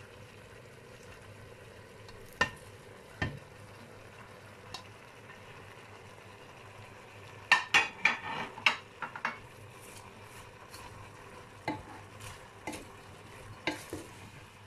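Chicken and sliced vegetables sizzling steadily in a frying pan while a wooden spoon stirs them, with scattered knocks and scrapes against the pan and a flurry of them about halfway through as shredded cabbage goes in.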